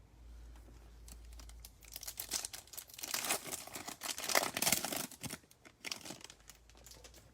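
Foil wrapper of a trading-card pack crinkling and being torn open by hand, with a dense run of crackles from about two to five and a half seconds in.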